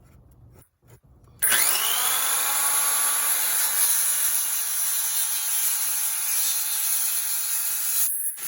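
Circular saw switched on about a second and a half in and running steadily while cutting a vinyl floor plank, stopping abruptly near the end.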